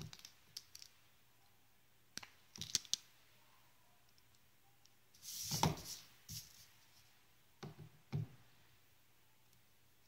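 Faint clusters of sharp clicks and a brief scraping rustle just after five seconds: side cutters and a small perfboard circuit being handled, with component leads being trimmed.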